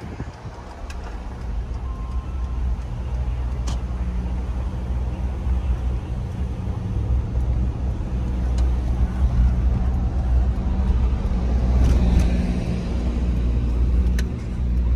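Steady low rumble of a car's engine and tyres on the road, heard from inside the moving car's cabin, with a few light clicks.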